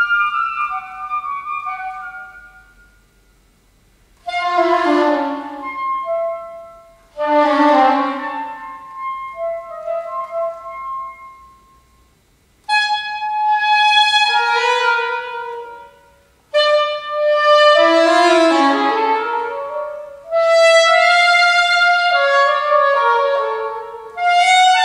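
Solo saxophone playing contemporary concert music. A few held notes die away into a pause, then come two loud accented low notes, each followed by short figures. From about halfway on there are fast, dense runs of notes broken by brief breaths between phrases.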